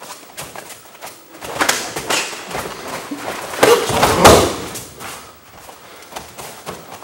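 Thumps and cloth rustling as a self-defence technique is worked on a partner, then a person falling heavily onto a padded mat about four seconds in, the loudest sound.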